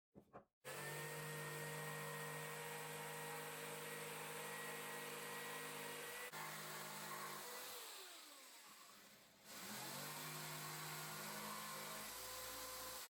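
Electric saw motor running steadily at full speed, then switched off and winding down, and started again to spin back up to speed and run on.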